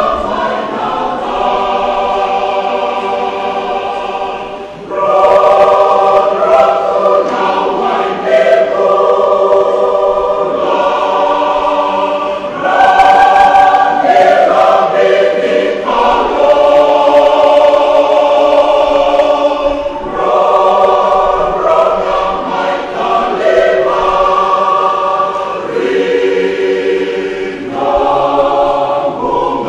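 Large church choir singing a Fijian-language anthem in several voice parts, in sustained phrases with brief breaks between them.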